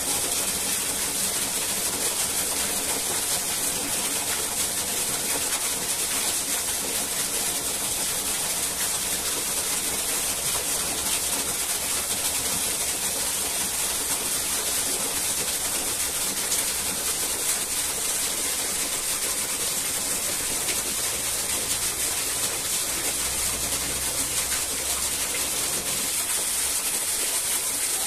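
Steady rushing of a waterfall: a continuous, even hiss of falling water.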